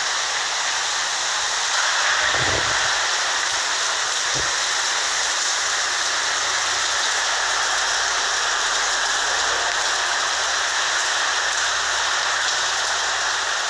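Heavy rain pouring down in a steady, loud rush, with a couple of brief low thuds a few seconds in.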